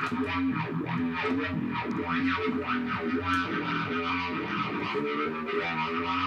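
Electric guitar played through distortion and effects, a run of notes changing every fraction of a second.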